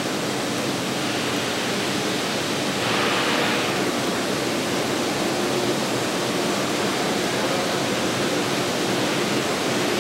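Steady, even hiss with no distinct events; it gets slightly louder and brighter about three seconds in.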